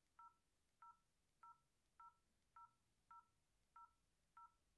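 Phone keypad beeping as a number is dialled: eight short beeps about every 0.6 s, each the same two-note tone.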